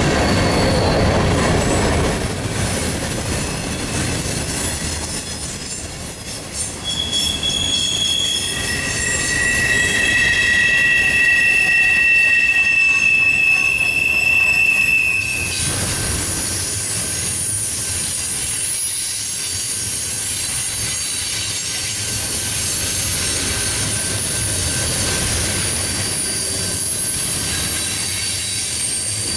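Freight cars' steel wheels squealing on a tight curve as a mixed freight train rolls by, over the low rumble of the wheels on the rail. Several shrill, steady screeching tones come and go one after another, and about halfway through the squeal turns higher and hissier.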